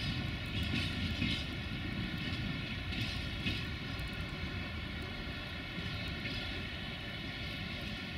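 Freight train of open wagons rolling away over the rails: a steady rumble that slowly fades.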